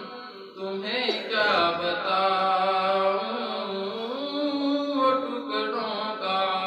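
A young man's solo voice chanting an Urdu naat, holding long notes with slow glides in pitch, with a short break for breath about half a second in.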